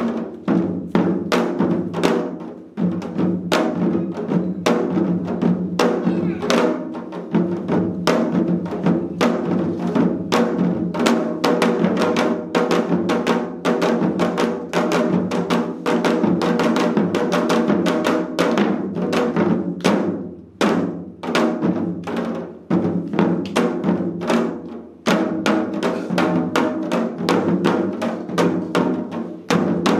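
Four janggu (Korean hourglass drums) played together in a seated seoljanggu ensemble: rapid, dense stick strokes on both drumheads, thinning to sparser strokes twice in the second half before filling out again.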